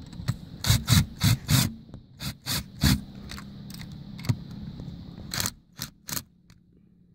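A socket driver turning a bolt on an aluminium solar-panel mounting bracket: about a dozen short metal-on-metal scrapes and clicks in quick groups, tailing off near the end.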